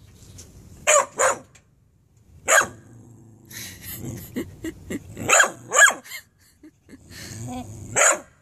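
Pitbull puppy giving a string of short barks and growls, the loudest cluster about five to six seconds in: protest noises that the owner reads as the puppy telling her no, refusing to get out of the truck bed.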